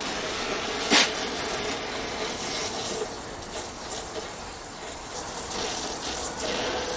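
Brazing torch flame hissing steadily while an exhaust pipe joint is brazed, with one short sharp sound about a second in.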